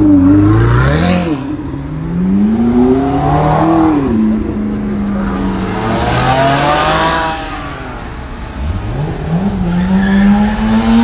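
Sports cars, a Ferrari and a Porsche 911 convertible among them, accelerating hard away one after another: engine notes climb through the revs with upshift dips about a second in and near four seconds, a car passes with a rush of exhaust and tyre noise around six seconds, and another engine revs up from low near the end.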